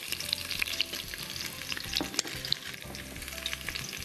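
Garlic cloves, chopped ginger and lemongrass frying in hot oil in a pot, a steady sizzle with many small crackles and pops.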